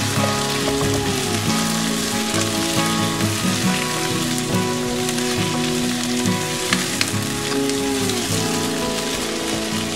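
Sliced potatoes and onions sizzling as they fry in oil in a non-stick pan, stirred with a spatula, over steady background music.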